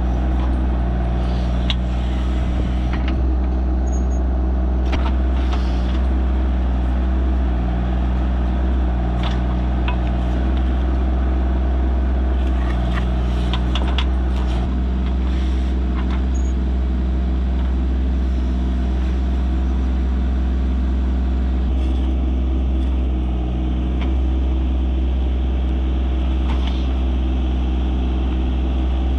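The Rural King RK24 tractor's 24-horsepower Yanmar diesel engine running steadily while it works the backhoe. Scattered short clicks and scrapes of metal against dirt and stone come through from time to time.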